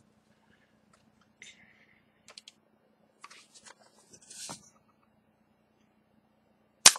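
A few soft clicks and rustles as a clapperboard slate is handled, then its clapper stick snapping shut in one sharp clap near the end.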